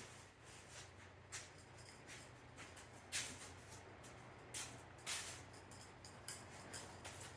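Faint short scuffs and scrapes, about five of them, over a low steady hum, as the VW Beetle is pushed by hand across the floor.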